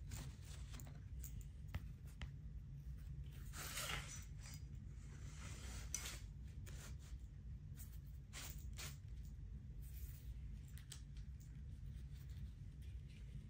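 Handling noises from a machete and its sheath being put away: scattered scrapes, rustles and light clicks, the longest scrapes about four seconds in and again near nine seconds, over a steady low hum.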